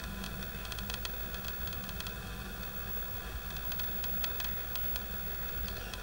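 Steady background hiss with a low hum, and a few faint short ticks scattered through it.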